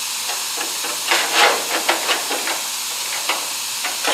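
A steady hiss with several light metallic taps and scrapes as a freshly cut sheet-metal patch is handled and fitted against a car's rocker panel.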